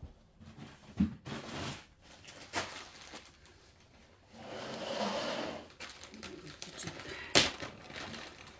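Handling noises while loose toy stuffing is fetched: a few scattered knocks, the sharpest near the end, and a rustle lasting about a second and a half in the middle.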